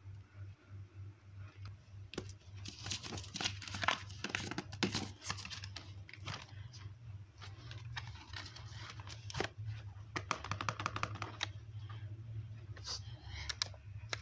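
Paper and sticker sheets being handled on a journal page: bursts of crinkling and rustling, densest twice, over a low steady hum.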